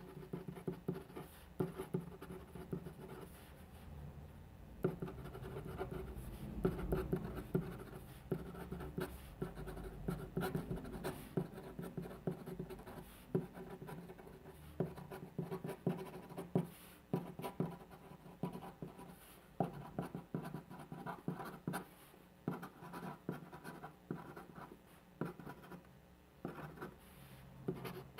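A pen writing by hand on paper: short scratchy strokes and taps of the pen tip in an irregular rhythm.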